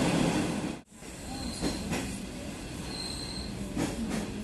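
Inside a diesel-hauled commuter train coach: loud rolling noise, then after a sudden break a quieter steady run with short high-pitched squeals from the wheels a few times and an occasional clunk, as the train runs into a station.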